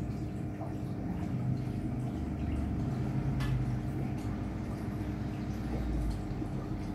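Aquarium pump humming steadily, with water trickling and dripping in the tank.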